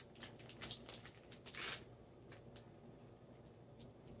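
Faint wet squishes and drips of marinade juice being squeezed out of fish into a pan, as scattered small clicks mostly in the first two seconds.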